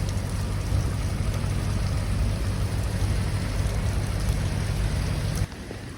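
Heavy rain falling, under a steady low rumble. The rumble and much of the rain noise drop off suddenly about five and a half seconds in.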